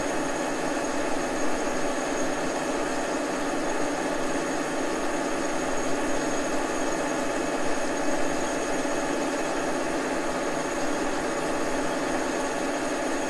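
Old Brown & Sharpe milling machine running at 360 RPM with a boring bar taking a light finish pass in a large bore: a steady machine hum with several steady tones and no change in speed.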